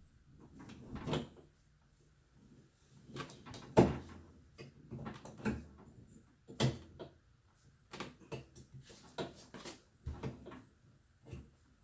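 Irregular knocks and clicks of a refrigerator door and its hinge hardware being handled while the door is refitted and its screws put in. The loudest knock comes about four seconds in.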